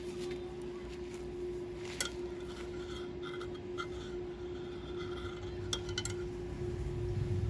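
A few light metallic clinks and taps, some with a short ring, over a steady hum.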